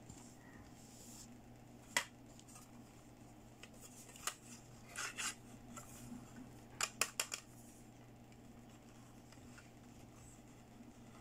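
Hard plastic toy makeup pieces clicking and tapping as they are handled: a single sharp click about two seconds in, a few more scattered clicks, and a quick run of four or five clicks about seven seconds in.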